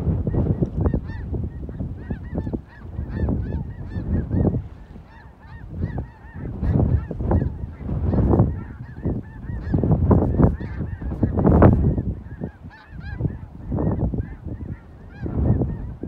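A large flock of snow geese calling in flight overhead: a dense, overlapping chorus of many short, high honks. Low rumbling swells and fades under it every second or two.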